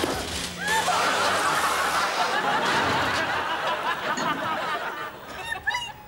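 Studio audience laughing together, a dense spell of laughter that sets in just after the start and dies down near the end.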